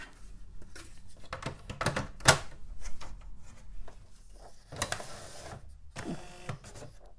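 An old dot-matrix printer being loaded with a sheet of paper by hand: clicks and knocks as the sheet goes in, a paper rustle about five seconds in, then a short mechanical whir near the end as the paper feed takes the sheet.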